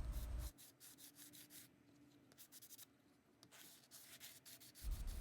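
Fine-grade sanding block rubbed in short, faint scratchy strokes along the edge of an epoxy resin coaster, smoothing off the sharp lip. A low rumble stops about half a second in and comes back near the end.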